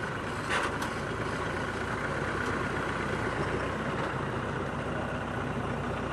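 Two-wheel hand tractor's engine running steadily as it pulls through floodwater. A short, louder noise comes about half a second in.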